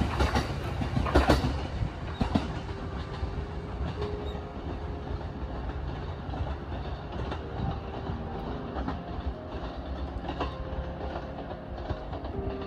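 A 209-series electric train's wheels clattering over the rail joints as it runs away down the line. The clatter is loudest in the first second or two, then fades with the distance to scattered clicks and a faint hum.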